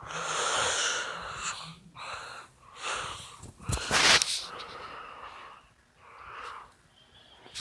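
Breathy, hissing noises close to the microphone in several separate puffs, with one sharper, louder burst about four seconds in.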